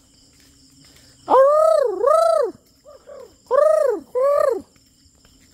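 A high voice calling out four times in two pairs, each call rising and then falling in pitch, over faint crickets.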